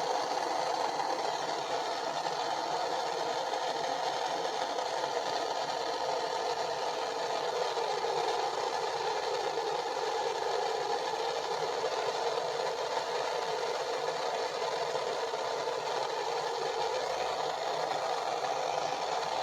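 Propane torch flame burning steadily with a constant rushing hiss, heating a copper pipe fitting for sweat-soldering.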